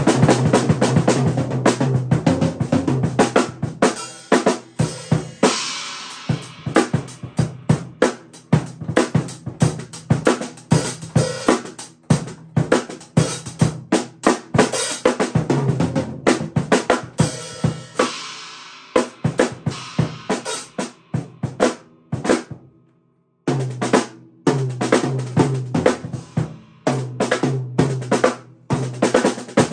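Drum kit played with sticks: a steady run of snare and cymbal hits over the bass drum, stopping for about a second about two-thirds of the way through and then starting again.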